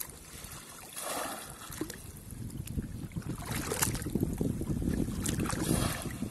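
Water sloshing and splashing as a man wades waist-deep and churns the water with his hands, in a few bursts that grow louder toward the end. Wind rumbles on the microphone throughout.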